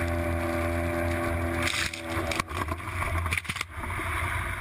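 Boat engine running steadily, a low hum with several even tones, joined by a few sharp knocks and clatters in the second half.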